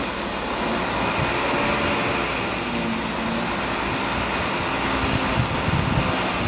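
A truck engine running steadily, with a few light knocks about five seconds in.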